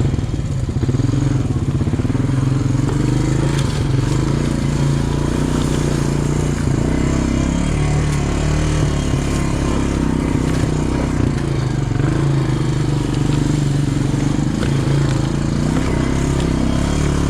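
ATV engine running steadily under way, its pitch wavering only slightly with the throttle.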